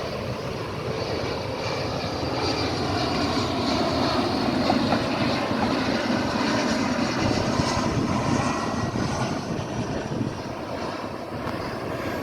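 Jet engines of a regional airliner on landing approach, a steady rushing drone with a faint whine. It grows louder for the first few seconds and eases off near the end as the aircraft passes.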